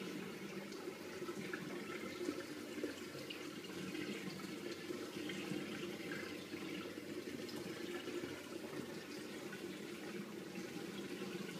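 Steady running, trickling water from an aquarium's filtration.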